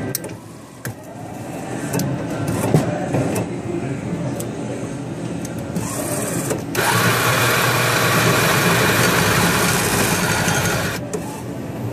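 Espresso machine's motor-driven mechanical unit running with a steady hum and an odd noise, which the owner suspects may mean it is running backward. About seven seconds in, a loud rushing hiss starts and stops abruptly some four seconds later.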